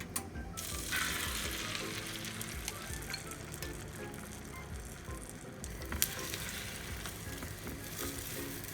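Food sizzling in a frying pan, a steady hiss that starts about a second in, with a sharp clack of a utensil or the pan about six seconds in.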